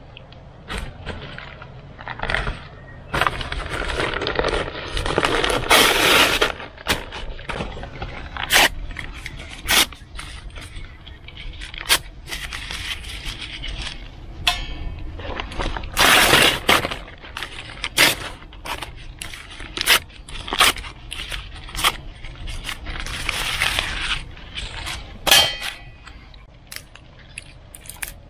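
Paper bags being crumpled and torn and dry twigs snapped by hand while kindling is packed into a small hobo stove: bouts of paper rustling between sharp, scattered snaps.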